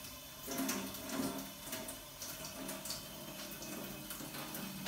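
Cooling water from a brewing kettle's steam condenser running out of a hose into a steel sink, with the wort boiling in the electric kettle beside it; a steady watery splashing with irregular small pops.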